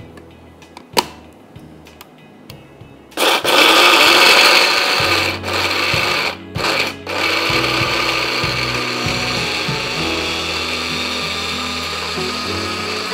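An electric grinder starts with a loud whir about three seconds in, grinding dry nuts and whole spices into thandai masala powder. It stops briefly twice, then runs steadily. A few light clicks come before it starts.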